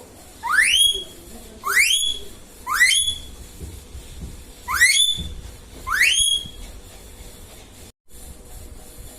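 Indian ringneck parrot giving five rising whistled calls, each a quick upward sweep ending on a held high note. They come in two groups, three close together and then two more, before it falls quiet.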